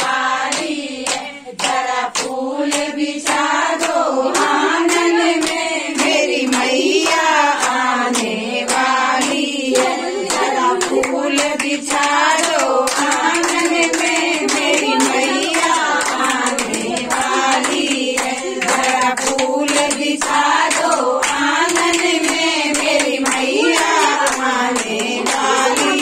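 A group of voices singing a devotional song to the goddess, with hand clapping in time.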